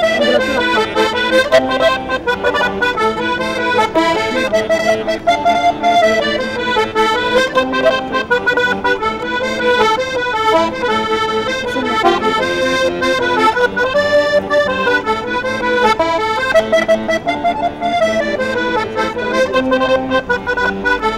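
Organetto, an Italian diatonic button accordion, playing a traditional tune: a quick-moving melody over steady bass and chord notes.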